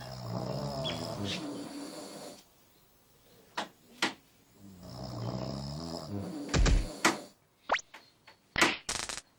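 A man snoring heavily, two long, rough snores a few seconds apart with a pause between them. Sharp clicks and thumps follow in the last few seconds, louder than the snores.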